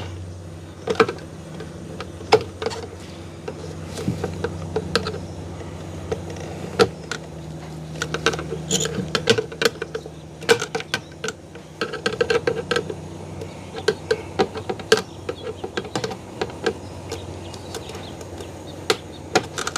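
Small flathead screwdriver picking and prying at a small steel C-clip on the fuel pump assembly's spring: a scatter of irregular light metallic clicks and scrapes over a steady low hum.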